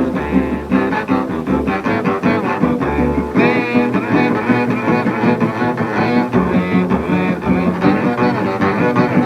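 Bowed double bass solo with vibrato over rhythm guitar, playing from a 1938 swing-jive 78 rpm record.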